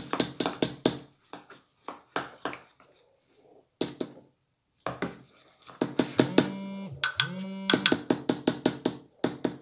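Slime being scraped and worked with a spoon: quick runs of sticky clicks and squelches, with a pause in the middle. A short held tone dips in pitch and comes back up about six seconds in.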